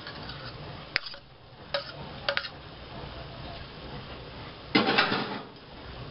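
Sliced sausage being scraped off a plate into a cooking pot with a utensil: a few sharp clinks of the utensil on the plate, then a louder clatter about half a second long near the end.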